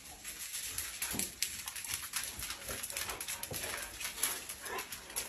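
Several large dogs moving about on a laminate floor, their claws ticking irregularly, with a few faint short whines.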